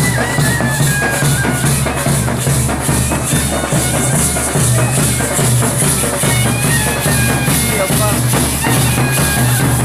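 Loud festival music: a steady drum beat under a high melody line, with crowd voices mixed in.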